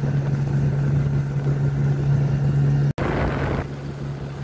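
Motorboat engine running steadily under way, a constant low drone over water and wind noise. The sound drops out for an instant about three seconds in, then the engine carries on slightly quieter.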